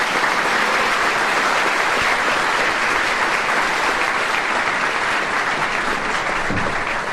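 Live audience applauding steadily at the end of a comedy sketch, many hands clapping together in a dense, even patter.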